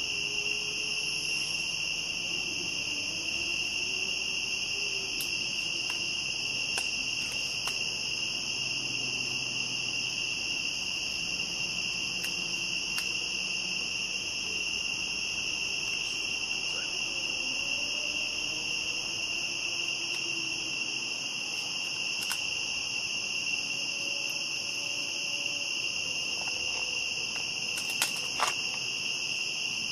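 Crickets chirring at night in a steady, unbroken chorus. A few faint ticks sound through it, with two sharper ticks near the end.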